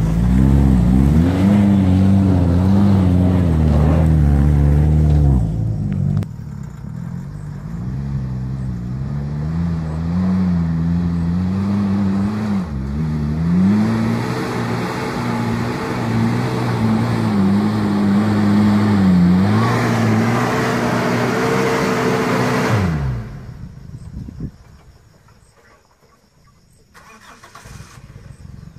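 Daihatsu Feroza 2.8 turbo 4x4's engine working through a muddy track, its revs repeatedly rising and falling. About 23 seconds in the engine sound drops away sharply, leaving it faint.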